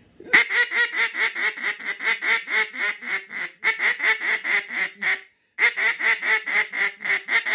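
Acrylic Big Bore mallard duck call blown in a fast, aggressive run of short quacks, about six a second, with a brief break a little past the middle before the run resumes. This is aggressive calling meant to lift mallards that are low on the deck and bring them in.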